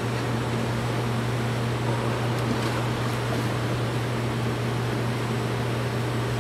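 Steady low machinery hum with an even hiss over it, unchanging throughout.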